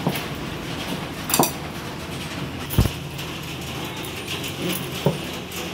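A hand kneading soft, sticky maida and yeast dough in a glass bowl: squelching and pressing, with about four short thumps as the dough is worked, the loudest a little before the middle.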